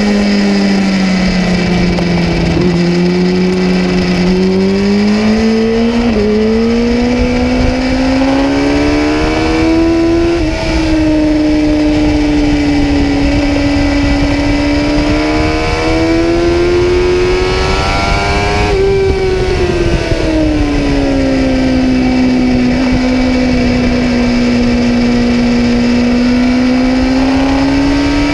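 Kawasaki ZX-10R inline-four engine heard onboard while being ridden hard around a race track. Its pitch rises and falls as the revs change, with a few sudden jumps in pitch along the way.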